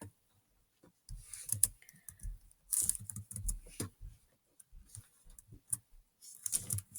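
Typing on a Chromebook laptop keyboard: uneven runs of short key clicks starting about a second in, with brief pauses between them.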